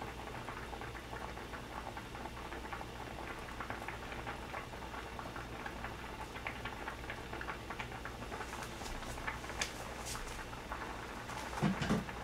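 Pot of seafood doenjang jjigae (soybean-paste stew) boiling on a gas burner: a steady fine bubbling crackle. A faint low hum runs underneath, and a few light knocks come near the end.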